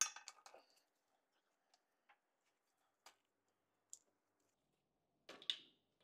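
Light metallic clicks and clinks of hand tools and metal parts against the engine's timing case: a short clatter at the start, a few single ticks, and a louder ringing clink near the end.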